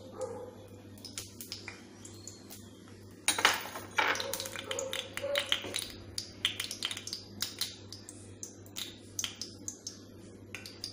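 Oil heating in a nonstick kadhai over a gas burner, crackling with scattered sharp ticks. A short, louder rush of noise comes about three seconds in, over a steady low hum.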